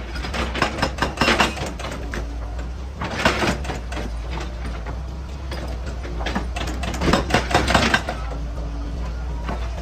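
Heavy excavating machinery running with a steady low engine drone, broken three times by bursts of rapid clattering and scraping impacts, as of rock and steel being worked.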